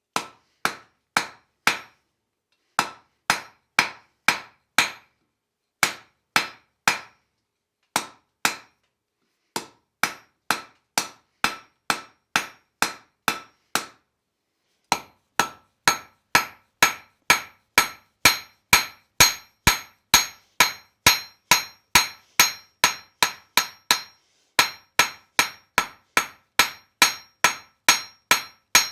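Hand hammer striking hot steel on an anvil while forging a leaf, each blow ringing briefly. The blows come in short groups with pauses at first, then settle into a steady run of about two and a half a second from about halfway.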